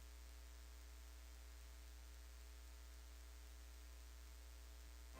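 Near silence: a steady low electrical hum with a faint hiss underneath.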